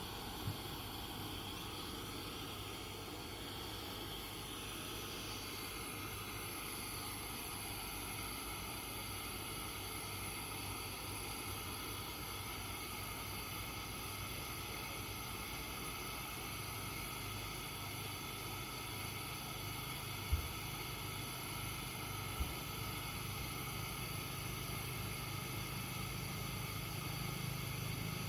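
Kerosene pressure lantern burning with a steady hiss from its burner, with a few sharp clicks and a low rumble that builds near the end.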